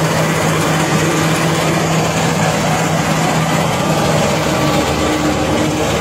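Kubota DC-93 combine harvester running at close range while harvesting rice: a steady, loud mechanical din with a constant low hum.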